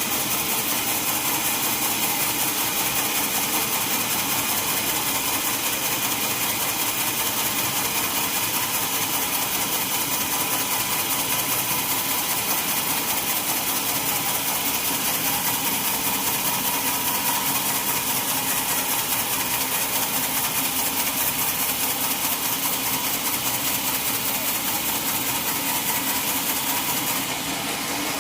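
Sawmill machinery running steadily at a constant pitch, with a slight dip in level near the end.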